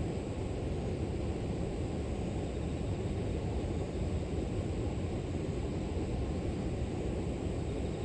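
Steady, even rush of flowing river water, deep and unbroken, with a faint thin high tone held steadily above it.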